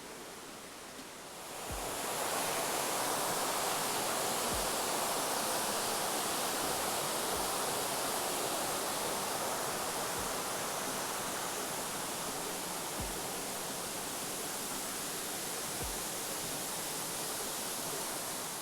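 Rushing water of a mountain river and its cascades, a steady rush that swells up about two seconds in and then holds. Faint low thumps recur every few seconds.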